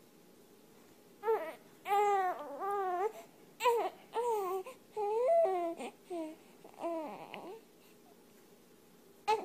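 Newborn baby crying: a run of short cries, each bending up and down in pitch, starting about a second in and dying away after about seven seconds. A single sharp click near the end.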